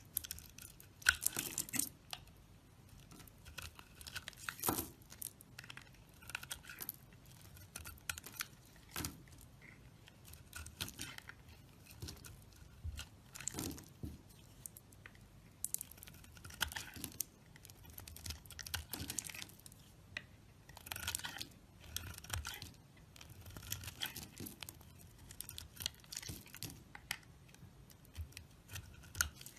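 A knife carving dry bar soap: a run of crisp scraping, crunching cuts, each under a second long, coming irregularly every second or two.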